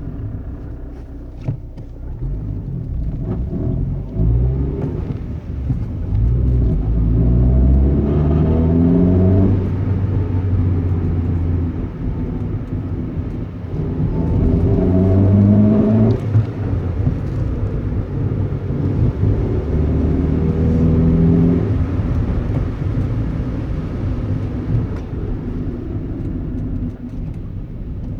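Honda Civic EJ9's 1.4-litre four-cylinder engine running, its pitch climbing steadily with revs and holding three times before dropping back. The owner reports a diesel-like noise at low rpm under load and places it somewhere around the alternator, injectors or throttle body.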